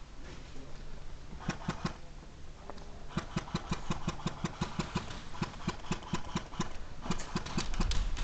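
Airsoft gun fire: a few pops about a second and a half in, then a fast, even string of pops at about five or six a second from about three seconds in.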